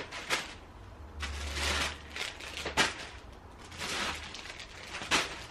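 Grocery packs being handled and set down: rustling twice, with three sharp clicks and knocks of the packaging.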